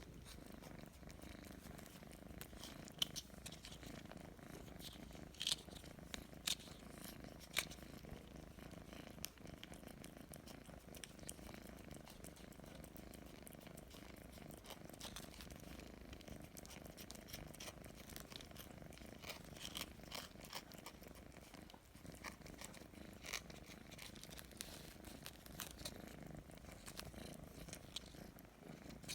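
Domestic cat purring steadily in a soft, low continuous rumble, with a few light clicks scattered through.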